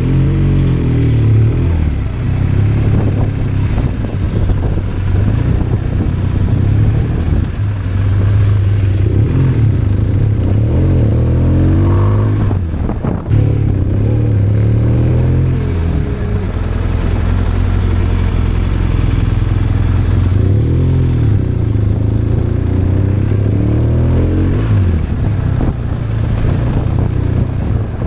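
BMW R1200RT boxer-twin engine on the move, its note rising and falling over and over as the bike accelerates and changes gear, with a short dip about halfway through.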